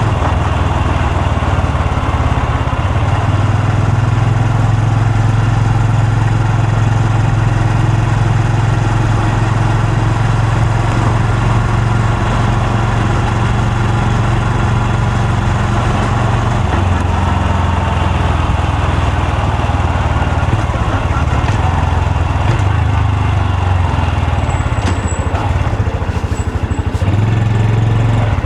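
Honda Super Cub C125's single-cylinder engine and exhaust running steadily while riding. The engine note drops a little about two-thirds of the way through and rises again near the end.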